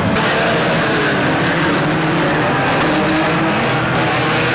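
Engines of a pack of banger racing cars running and revving together, several engine notes overlapping, steady and loud.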